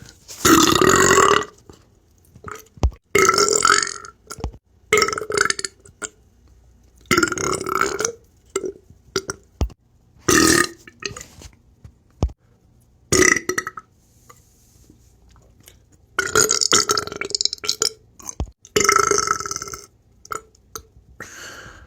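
A person burping deep beer burps, about seven in a row a few seconds apart, each lasting up to a second and a half, with short clicks in the pauses between them.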